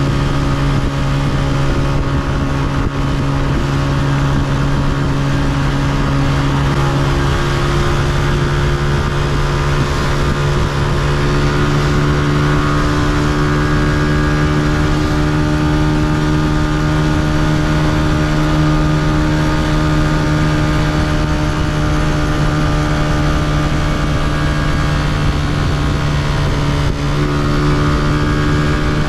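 Honda CG125's single-cylinder four-stroke engine running steadily under way, with a constant engine note that steps up slightly twice in the first half.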